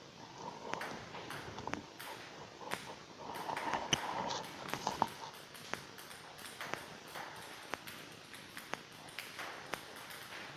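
Ping-pong balls from a table tennis robot clicking sharply on the table about once a second, in an uneven rhythm.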